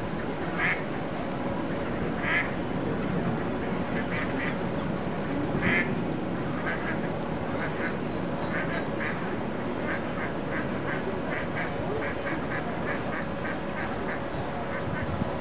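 Mallards calling: a few separate short calls, then from about halfway a quick run of short calls, two or three a second, over steady background noise.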